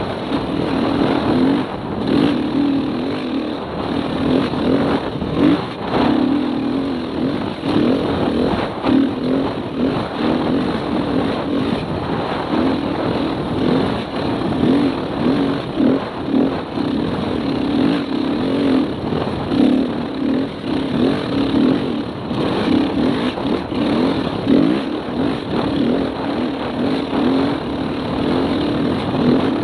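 Dirt bike engine running hard under way, its pitch rising and falling with the throttle, over a steady rushing noise.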